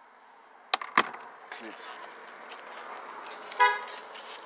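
Two sharp plastic snaps about a second in as the side moulding's trim clips come free or click home, then scraping of the trim. Near the end comes a brief pitched toot, as loud as the snaps.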